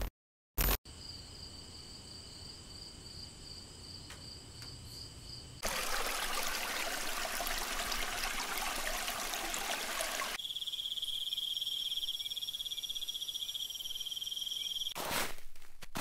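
A sequence of nature ambiences. First a faint, steady, high pulsing insect chorus. From about six seconds a rocky stream rushes, and from about ten seconds a high steady insect trill follows. Footsteps on a woodland path begin near the end.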